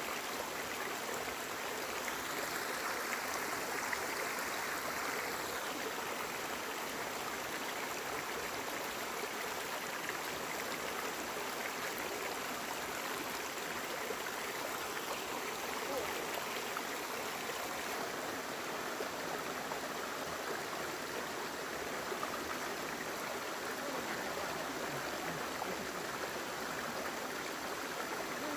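Steady rushing of flowing water, as from a stream.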